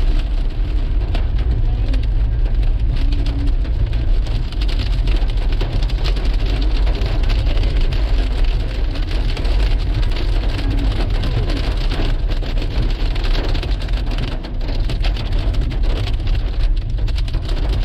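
Pea-sized hail pelting down on surfaces, a dense, steady patter of many small hits over a low rumble.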